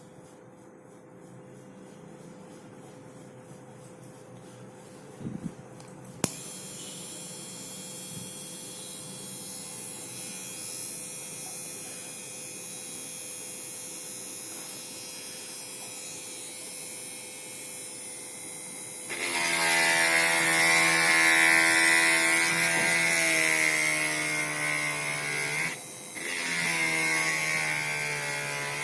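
Homemade mini drill's RS-555 12 V DC motor: a click as it switches on about six seconds in, then a steady whirring hum. About two-thirds of the way through it becomes much louder and its pitch slowly sags, cuts out briefly near the end and starts again.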